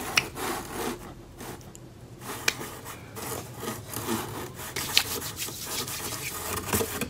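Hands rubbing together, working in hand sanitizer gel, with a few light clicks along the way.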